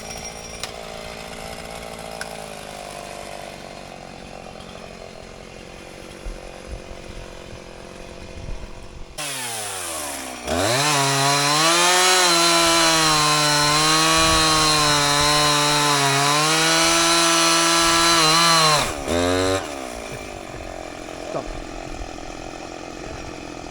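Two-stroke chainsaw idling, then revved up about nine seconds in and held at full throttle for about eight seconds, its pitch wavering as it cuts through a pine log. It then drops back to idle, with one short blip of the throttle.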